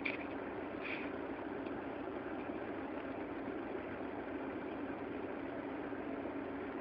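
A steady low rumble of an idling engine, with two short higher chirps in the first second.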